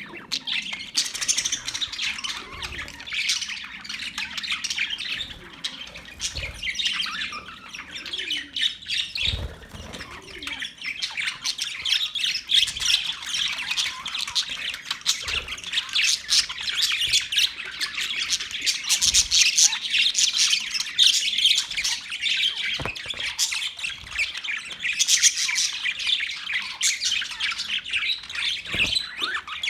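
Birds chirping and squawking in a dense, continuous chatter of quick, high, overlapping calls.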